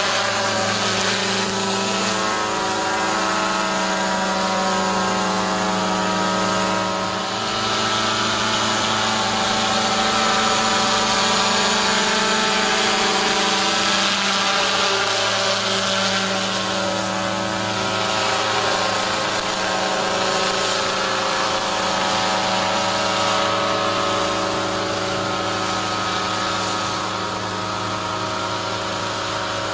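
Small unmanned crop-spraying helicopter's engine and rotor running steadily as it flies low over a paddy field: a continuous mechanical hum with a hiss that grows a little louder around the middle.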